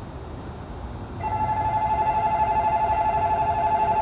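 Electronic warning bell of a Korean railway level crossing switching on about a second in, a rapid two-tone ding repeating steadily over a low rumble: the crossing has been activated by an approaching train.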